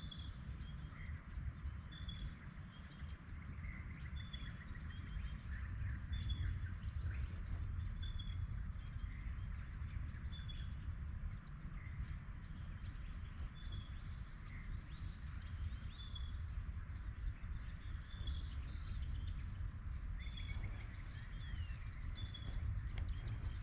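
Birds calling in bushland, one giving a short high chirp about once a second with other brief calls scattered among it, over a steady low rumble.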